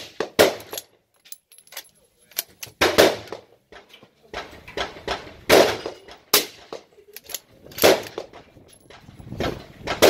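Suppressed Ruger Precision rifle in 6.5 Creedmoor firing a series of sharp reports, about five, a second or two apart, with fainter clicks between them.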